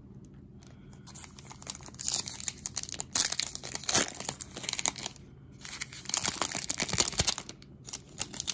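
Foil baseball card pack wrapper being torn open and crinkled by hand, in runs of crackling with a short pause a little past halfway.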